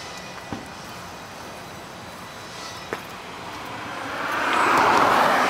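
Street ambience with a passing vehicle whose noise swells to a loud peak near the end. Two light clicks come earlier.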